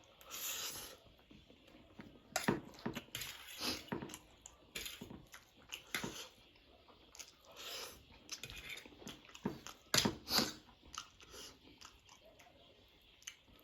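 A person eating spicy instant noodles close to the microphone, with wet chewing, biting and slurping noises at irregular intervals.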